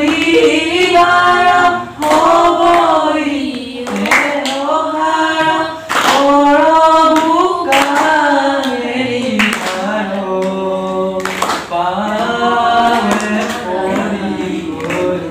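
A group of men and women singing a devotional song together in long sung phrases, with a few sharp strikes keeping time at the breaks between phrases.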